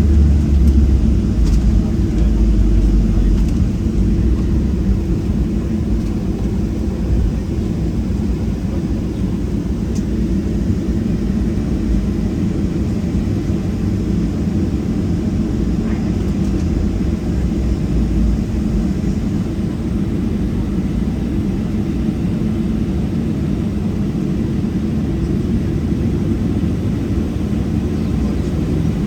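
Cabin noise of a Boeing 737-700 at high thrust just after takeoff: a steady low roar from its CFM56-7B turbofan engines and the airflow, a little louder in the first few seconds, then even.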